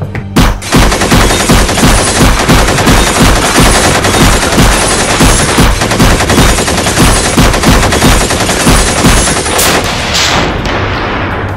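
Sustained rapid automatic gunfire, a long machine-gun burst laid over the action as a sound effect. It breaks off shortly before the end.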